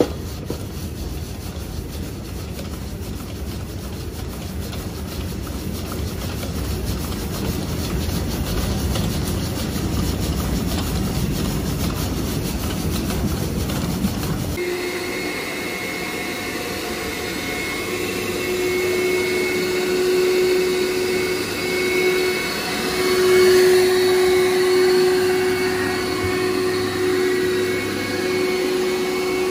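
Single-disc rotary floor scrubber running, a steady low hum from its motor and brush. About halfway through it cuts to a walk-behind scrubber-dryer whose vacuum motor runs with a steady whine.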